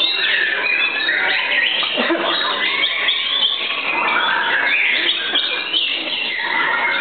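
White-rumped shamas (murai batu) singing, several birds at once: a dense, unbroken tangle of loud whistled phrases with quick rising and falling notes.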